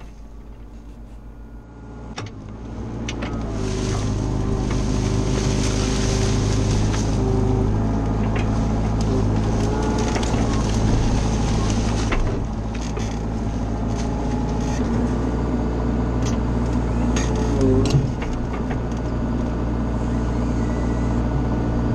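An engine running steadily under load. It grows louder about two seconds in, then holds, with a short wobble in pitch near the end.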